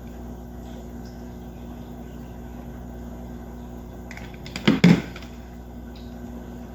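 Steady low mechanical hum, like a fan or air conditioner in a small room. Near the middle comes a brief cluster of a few loud knocks, typical of handling against the wall.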